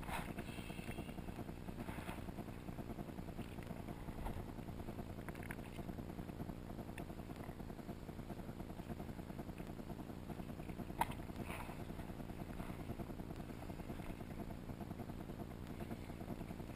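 Boat's twin 225 hp outboard motors running steadily, with one short click about eleven seconds in.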